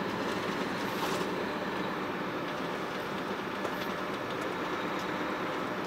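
Steady engine drone and road noise inside the cab of a large tractor-trailer truck at road speed, with a few faint ticks or rattles.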